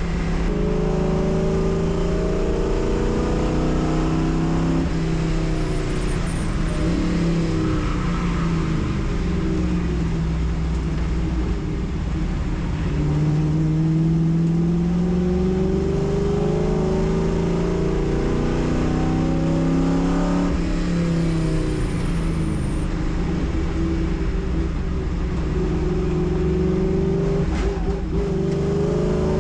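Race car engine at racing speed, its pitch rising through the revs under acceleration and dropping back several times, over a steady hiss.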